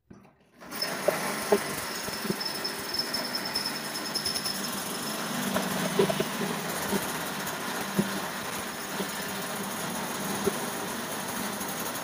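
Power drill starting up just under a second in and running steadily as its bit cuts a hole through the sheet-steel wall of an electrical control panel, with scattered short knocks as the bit bites into the metal.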